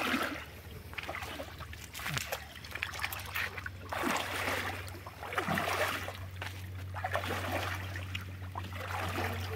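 Shallow pond water splashing and sloshing in irregular bursts about every second, as it is stirred up during fishing. A steady low hum sits underneath from about halfway through.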